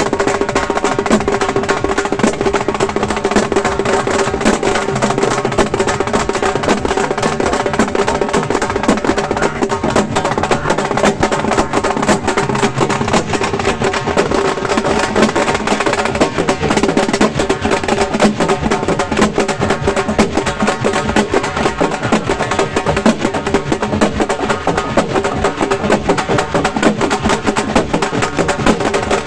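A halgi drum ensemble, flat frame drums beaten fast with sticks in a dense, driving rhythm, loud, with a steady ringing tone under the strokes.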